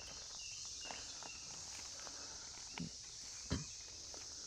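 Footsteps of a person walking through brush, with two sharper steps a bit under three seconds in and about three and a half seconds in, the second the loudest, over a steady high hiss.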